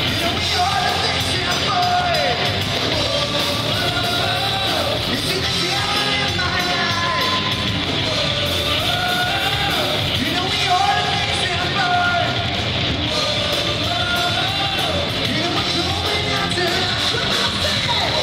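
Hard rock band playing live, with distorted electric guitars, bass and drums under a lead vocal singing the melody. It stays loud and steady throughout.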